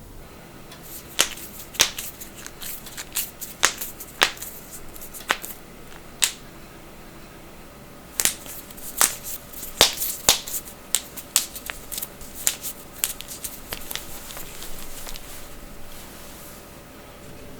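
Human joints being cracked: a series of sharp pops. About eight come spaced out over the first six seconds, then a quicker run of louder pops about eight to eleven seconds in, tapering to fainter ones.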